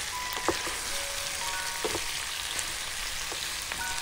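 Boiled oxtail pieces frying in a pan with onions and tomato slices, a steady sizzle, with a couple of light knocks about half a second and two seconds in.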